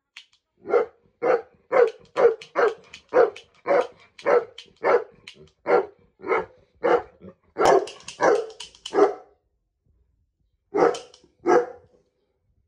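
Saint Bernard barking repeatedly at about two barks a second, then a short pause before two more barks near the end.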